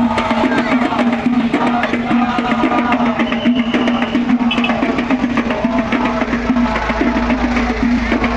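Music with rapid, dense drumming and knocking percussion over a steady held note.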